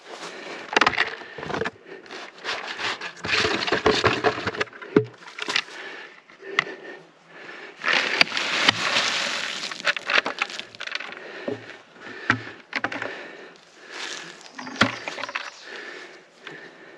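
Irregular cracking and scraping of wood and brush, with sharp snaps scattered throughout and a longer rustling scrape about eight seconds in.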